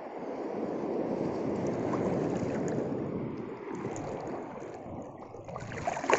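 Sea waves washing in around the wading angler, the rush swelling to its loudest about two seconds in and then fading, with a sharp knock near the end.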